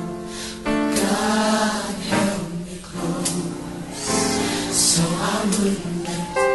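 Gospel choir singing with instrumental accompaniment, in sustained phrases that break and start again every second or two.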